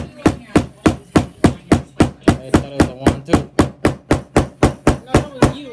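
A fast, even run of sharp strikes, about three and a half a second, each with a short ring, over a steady low hum.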